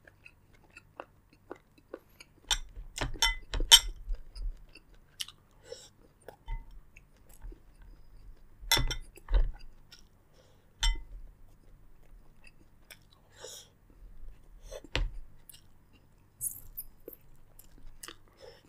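Eating a seafood boil: wet chewing and crunching, with sharp cracks and clicks scattered through. There is a loud cluster a few seconds in and single sharp cracks around the middle and later.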